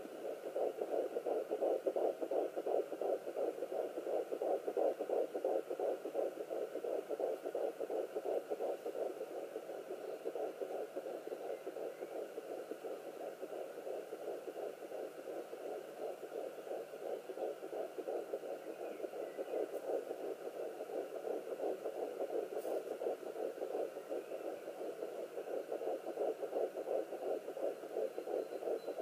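Fetal heartbeat at 11 weeks of pregnancy picked up by a Sonoline B handheld fetal doppler and played through its speaker: a fast, steady pulsing that runs without a break.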